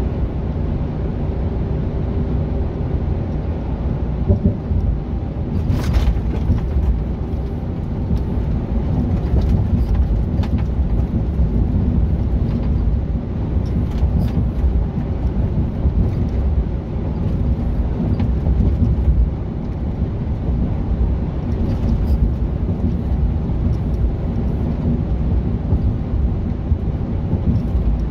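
Mercedes-Benz Actros truck cruising at motorway speed, heard inside the cab: a steady low rumble of engine and road noise, with a few brief clicks.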